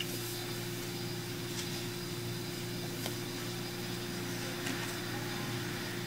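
Room tone: a steady low hum with a hiss over it, such as a fan or an appliance gives, with a few faint ticks.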